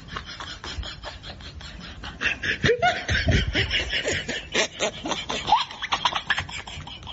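Several people laughing and snickering, with rapid bursts of laughter that get louder about two seconds in.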